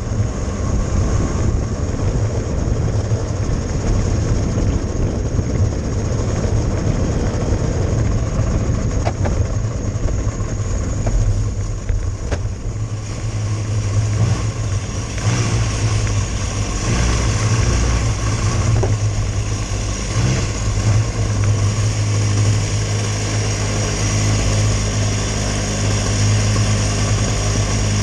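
Cadet kart's single-cylinder engine heard from an onboard camera, running steadily at low revs as the kart rolls slowly, then idling.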